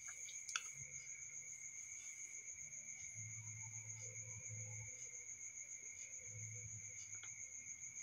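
Faint, steady high-pitched trilling of crickets, with a soft click about half a second in.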